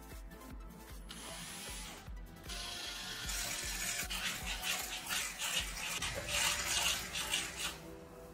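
Cordless drill spinning a flap sanding wheel against a plastic box, grinding down a melted plastic weld seam, starting about two and a half seconds in and stopping near the end. Background music with a steady beat plays throughout.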